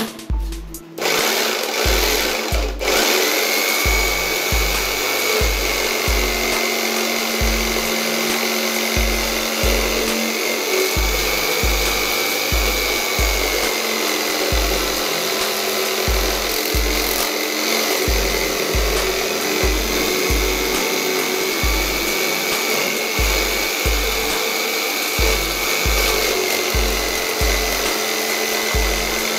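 Jigsaw mounted under a homemade table running, its blade reciprocating through the tabletop and cutting a workpiece fed by hand. It is a steady motor whine that wavers slightly with the load and starts about a second in.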